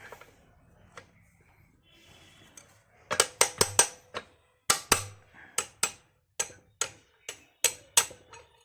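Irregular series of sharp metallic taps and clinks, about three a second, starting about three seconds in: metal tools knocking against the pump's gland fittings during the packing replacement.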